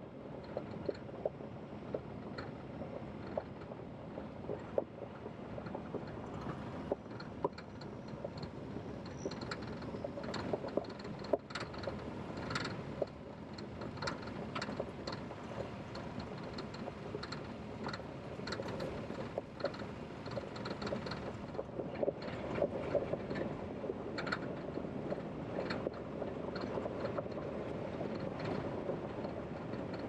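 Vehicle tyres rolling over a gravel road: a steady crunching rumble with frequent small clicks and pops of stones.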